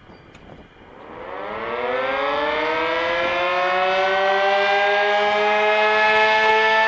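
Sentry 15V2T-B dual-tone outdoor warning siren starting its steady attack signal: it winds up from about a second in, its pitch rising and levelling off into a steady chord. It is running short of full strength, which the uploader puts down to the siren needing fresh batteries.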